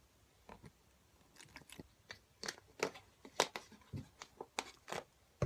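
Thin plastic water bottle crinkling and crackling as it is gripped and squeezed in the hand: a string of irregular sharp crackles.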